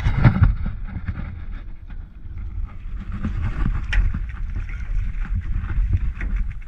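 Wind buffeting the microphone and water sloshing around a small boat, with a sharp splash about four seconds in as a hooked dorado (mahi-mahi) thrashes at the surface.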